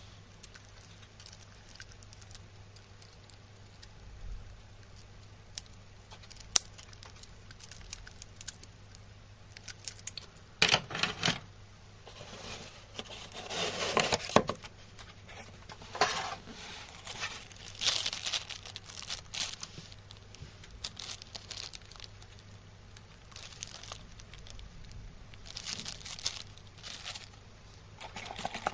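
Cardboard presentation box and its foam insert being handled: scattered rustling, scraping and small knocks, mostly from about ten seconds in, loudest between about ten and fifteen seconds.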